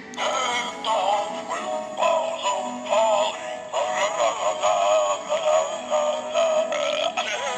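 Animated Santa Claus novelty decoration playing its Christmas song: a voice singing over a backing tune that starts abruptly just after the beginning.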